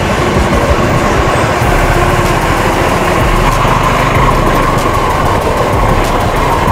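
Suzuki V-Strom SX 250's single-cylinder engine running steadily as the motorcycle rides along a dirt track, with a few light knocks from the rough ground.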